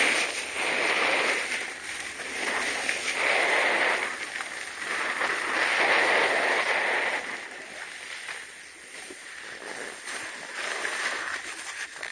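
Edges scraping and hissing across snow during a descent, swelling and fading in waves with the turns, with wind buffeting the microphone.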